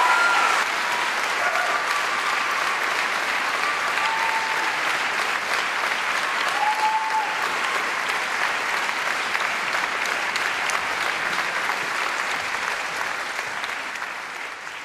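Theatre audience applauding steadily after a song, the applause fading away near the end.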